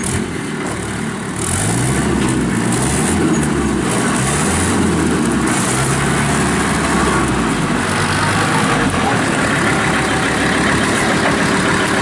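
Kubota M5400 tractor's diesel engine running, getting louder about a second and a half in, with its pitch shifting a little as it works.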